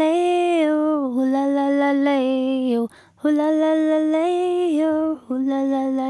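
A woman singing long held notes without words, the tune stepping gently up and down, in two phrases with a short break about three seconds in.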